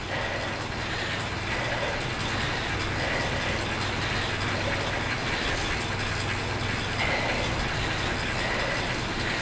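Indoor bike trainer and drivetrain whirring steadily under constant pedaling, with a low hum and a faint high whine.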